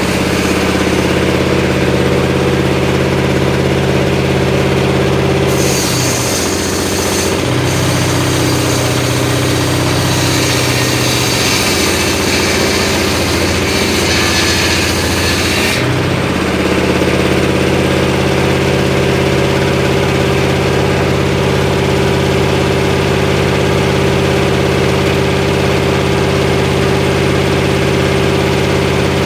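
Engine-driven homemade circular saw running steadily. For about ten seconds, starting some six seconds in, the engine pitch drops and wavers under load while the blade cuts through mahogany with a high hissing sound, then it settles back to a steady run.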